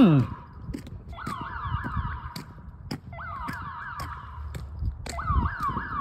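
Security-system alarm siren sounding in bursts of rapid rising sweeps, about three a second, each burst lasting a little over a second with short gaps between.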